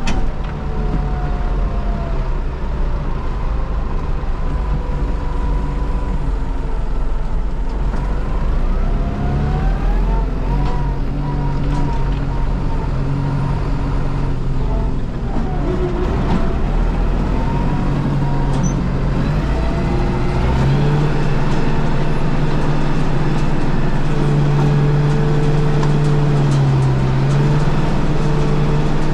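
Steyr 9094 tractor running with a Trioliet feed mixer wagon while feeding out: a steady diesel engine note with a whine that glides up and down in pitch. About two-thirds of the way in, the engine note gets louder and holds steady.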